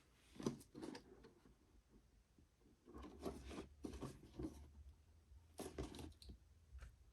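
Faint handling of goggle packaging: rustling and scraping in three short bouts.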